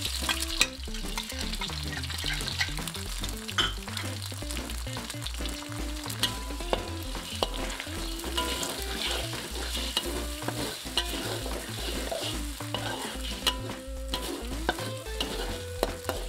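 Eggs sizzling in a hot wok as a metal spatula stirs and scrambles them, with frequent clicks and scrapes of the spatula against the wok.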